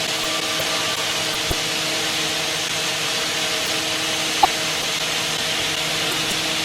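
Kitamura Mycenter-3XD vertical machining center cutting metal: a steady hiss of cutting and coolant over a few steady machine tones, with a brief sharp tick about four and a half seconds in.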